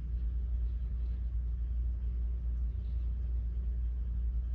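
Steady low rumbling hum of background room noise, with no other event.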